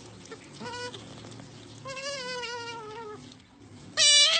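Pet otter calling for snacks with high-pitched calls: a short call, then a longer one that slowly drops in pitch, and a much louder call starting near the end.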